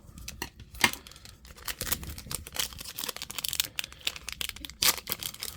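A trading-card booster pack's wrapper being torn open and crinkled by hand: a run of rustles and tearing crackles, the sharpest about a second in.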